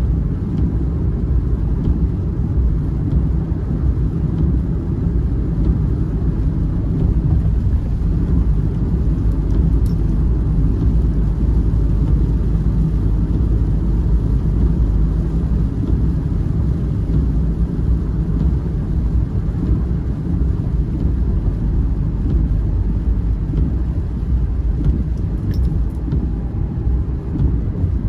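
Steady low rumbling noise with no distinct events, constant in level throughout.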